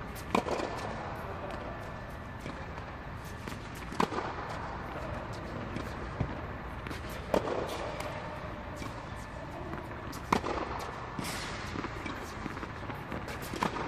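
Tennis ball struck by a racket in a rally drill: five sharp hits about three to four seconds apart, with fainter ball bounces between them.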